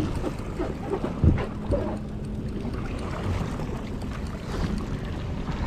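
Wind buffeting the microphone over open water, with the wash of the sea against a boat and a faint steady hum for a couple of seconds.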